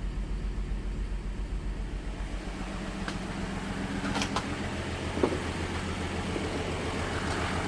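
A 2008 GMC Acadia's 3.6L V6 idling with an even pulsing note that shifts about two and a half seconds in, with a few faint clicks in the middle. It is running on four cylinders, because cylinders 3 and 5 are dead and it is throwing a P0300 random misfire code.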